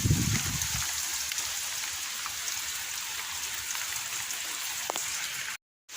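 Heavy storm rain falling steadily, an even hiss. Wind buffets the microphone with a low rumble that fades out within the first second. The sound cuts out briefly near the end.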